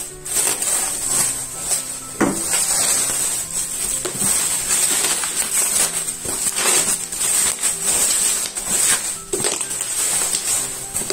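Bubble wrap crinkling and rustling as it is pulled and folded off a wrapped package, with irregular crackles, the loudest about two seconds in and again near seven and nine seconds in.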